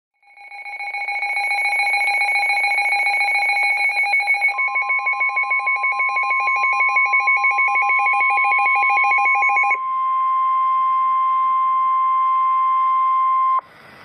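Weather radio alert: rapid electronic beeps at two pitches for nearly ten seconds, joined about four seconds in by the steady 1050 Hz NOAA Weather Radio warning alarm tone, which carries on alone after the beeps stop and cuts off suddenly shortly before the end. It announces an incoming severe thunderstorm warning broadcast.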